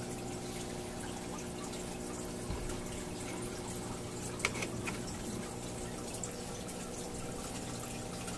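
Aquarium water trickling and dripping over a steady low hum from the tank equipment, with a couple of light clicks about two and a half and four and a half seconds in.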